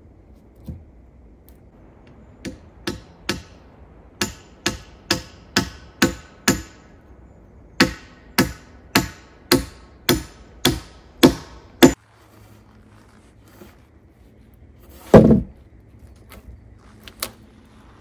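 A hand tool striking log timber in a steady run of sharp blows, about two a second with a short break midway, each with a faint ring. The blows stop abruptly, and a few seconds later comes a single heavy thump, the loudest sound.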